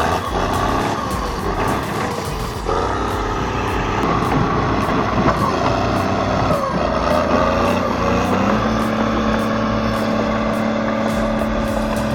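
Heavy construction machine's diesel engine working under load, its pitch rising and falling as the throttle changes, then holding steady from about eight seconds in.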